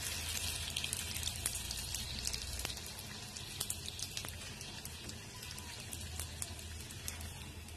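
Golgappa puri deep-frying in hot oil: a steady sizzle with many sharp crackles, thinning out toward the end as the puffed puri is lifted from the oil.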